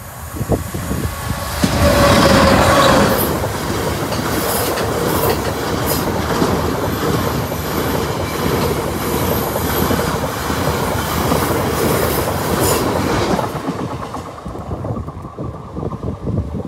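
GBRf Class 66 diesel locomotive, with its two-stroke EMD engine, passing close by with a train of hopper wagons. It is loudest about two seconds in, as the locomotive goes past. Then comes the rattle and clickety-clack of the wagon wheels over the rail joints, fading away after about fourteen seconds.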